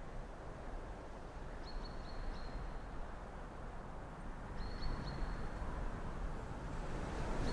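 Forest ambience: a steady low rumbling outdoor noise with a bird's short high calls, once about two seconds in and again near five seconds.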